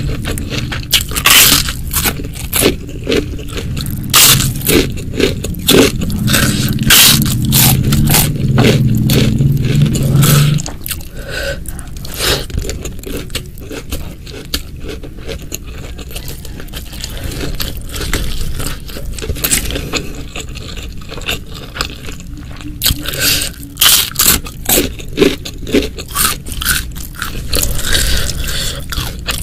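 Close-miked eating sounds: many sharp crunches and scrapes from biting into and chewing crunchy food, busiest at the start and again near the end. A low steady hum underneath cuts off about ten seconds in.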